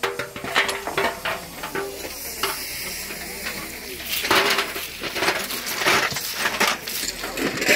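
Track maintenance work on a railway line: a steady hiss with scattered sharp clinks and knocks from tools and ballast stones, and voices.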